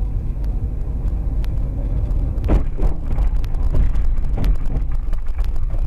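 Car on the move, a steady low road and engine rumble as picked up by a dashcam microphone, with scattered light knocks and rattles and a louder cluster of them about two and a half seconds in.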